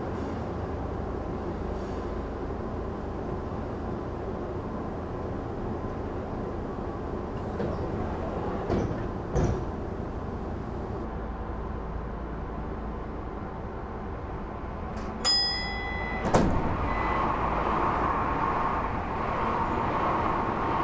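Traction motors and gearing of a Tokyu 8500 series electric train running, a steady drone of several tones. Around two-thirds of the way in come a short high tone and a knock. The sound then changes to the cab's, with the rush of another train passing alongside.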